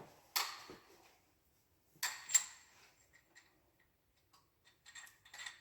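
Hand tools on the bolts of a Perkins 236 diesel engine, likely a torque wrench and ratchet tightening bolts. There is a sharp click, then two louder metallic clicks with a short ring about two seconds in, and a quick run of light ticks near the end.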